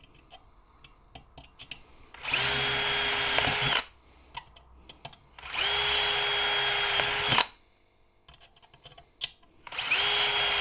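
DeWalt cordless drill with a 1.5 mm high-speed metal bit, opening up small holes in a thin metal bin. It runs in three short bursts of about a second and a half each, a few seconds apart, each with a steady whine, and the third carries on past the end. Light handling clicks sound between the bursts.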